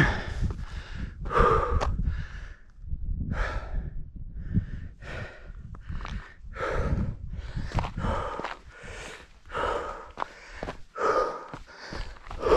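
A hiker breathing hard from exertion: loud, rasping breaths, about one a second, with a low rumble underneath.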